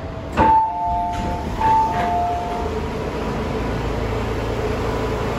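Onboard train chime, a high note then a lower note, sounding twice about half a second and a second and a half in, over the steady running noise of an MTR M-train in motion.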